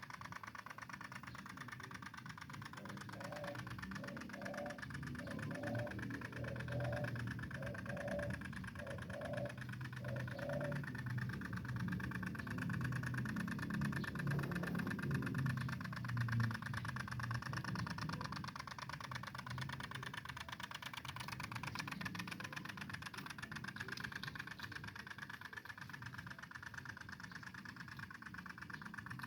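Two-stroke engine of a G1000 mini tiller running steadily, its low note swelling louder for a few seconds in the middle, as under load while tilling.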